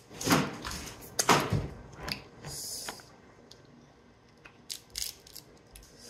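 Eating a boiled crab up close: two loud sucks at the crab shell in the first second and a half as meat is drawn out of a leg, then quieter cracking and clicking of the shell as the crab body is pulled apart.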